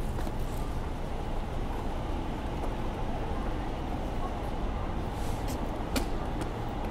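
Urban street ambience: a steady low rumble of distant traffic, with a few light taps near the end.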